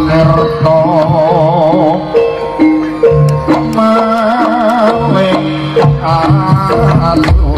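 Live Javanese jaranan ensemble music: kendang drum strokes and steady struck gong-chime notes under a wavering melody line with heavy vibrato.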